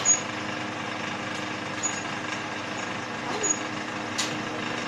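Multi-spot wire-mesh welding machine running with a steady hum, with a short sharp sound just after the start and a few briefer knocks and hisses later on.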